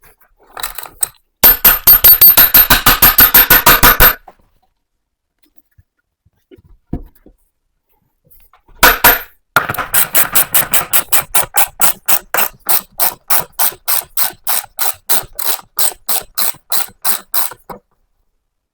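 A hand or power tool working in rapid, evenly spaced loud strokes, in two runs. The first is short, about nine strokes a second; the second is longer and slower, about four a second, and gradually gets quieter.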